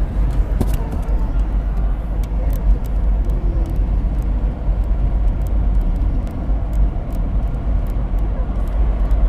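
Light, irregular tapping, several small taps a second, over a loud, steady low rumble.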